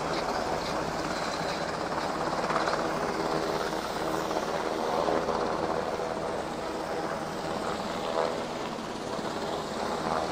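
Helicopter flying overhead, its rotor and engine making a steady drone.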